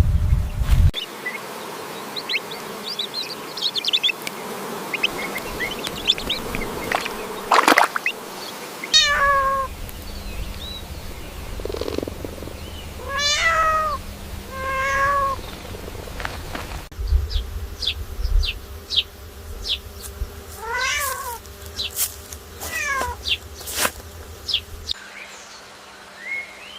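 Animal calls: a series of short, arching calls with a clear pitch, rising then falling, mixed with scattered quick high chirps.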